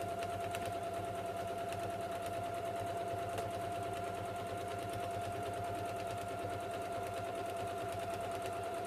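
Janome electric sewing machine running steadily, topstitching through layered fabric: an even motor whine with rapid, regular needle ticks.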